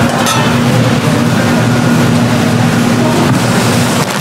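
Steady low mechanical hum under a constant noisy background, with a short dip near the end.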